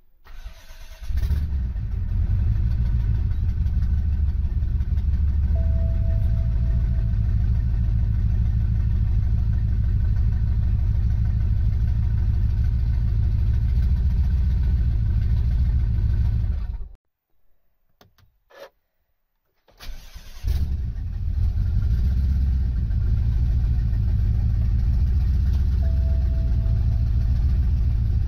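BMW F10 M5's 4.4-litre twin-turbo V8 starts about a second in and idles steadily at about 1,000 rpm. It is switched off after about sixteen seconds and started again about three seconds later. This is the engine's first start after a salvage rebuild and service, and no rod knock can be heard.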